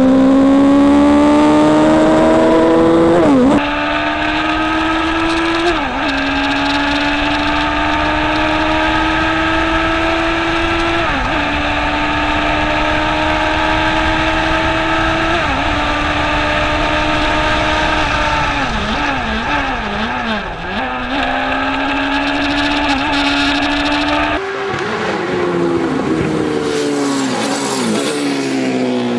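Single-seater race car engine heard onboard under full throttle, its pitch climbing steadily in each gear and dropping at four upshifts, then a run of downshifts with throttle blips before it accelerates again. After an abrupt cut, a single-seater race car passes by, its engine note falling as it goes away.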